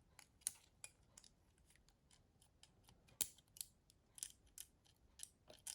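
Faint, irregular small clicks and ticks of a Nokia 6060 handset being taken apart as its main board is worked loose from the housing. The sharpest click comes about three seconds in.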